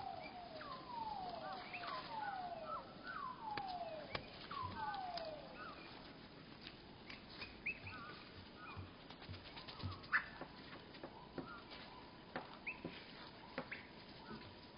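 Feeder birds' calls slowed to a third of normal speed, so they sound deep and drawn out. A series of about six falling, slurred calls comes in the first five seconds. After that come scattered sharp clicks and a few short chirps.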